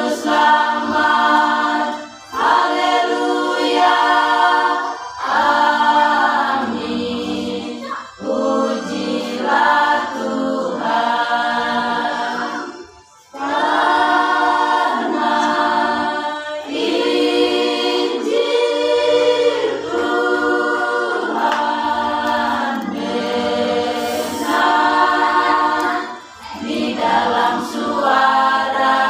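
Women's choir singing a hymn a cappella, in long phrases with short breaks for breath between them, the longest about halfway through.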